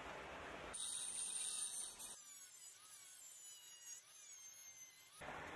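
Dremel rotary tool with a cut-off wheel. A high-pitched whine starts about a second in, and from about two seconds the wheel grinds through a metal jigsaw blade with a wavering, sliding pitch, stopping about five seconds in.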